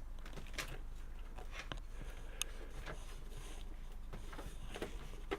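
Faint, scattered small clicks and light handling noises from cables and plastic parts being worked by hand inside a PC case, over a low steady hum.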